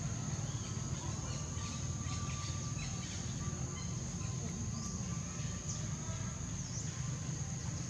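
Outdoor ambience: insects drone steadily at a high pitch, a few short bird chirps come in about five to seven seconds in, and a low rumble sits underneath.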